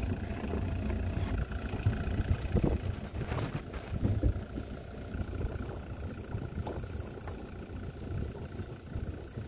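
Sailing yacht's inboard engine running steadily as the boat motors out of harbour: a low rumble, with a few short knocks.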